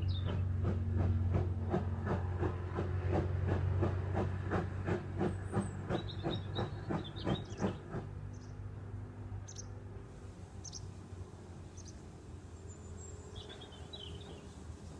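Caledonian Railway 0-6-0 steam locomotive No. 828 working away, its exhaust chuffing at an even beat of about two and a half a second and fading out about eight seconds in. A few short bird chirps come in the middle and near the end.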